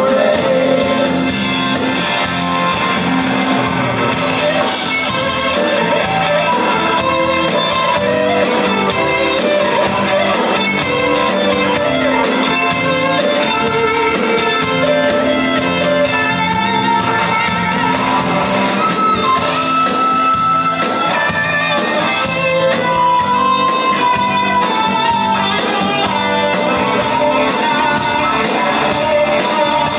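Live blues-rock band playing an instrumental passage, with electric guitar in the lead over a steady beat and no singing.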